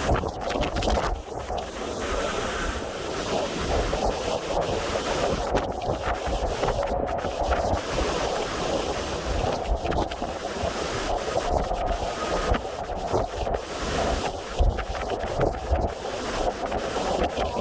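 Hurricane-force wind rushing and buffeting the microphone in gusts, a continuous roar that swells and eases without letting up.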